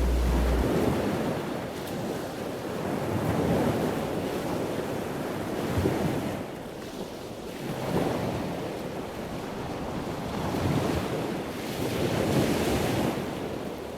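Ocean surf: waves washing in and drawing back, the rush swelling and ebbing every two to three seconds.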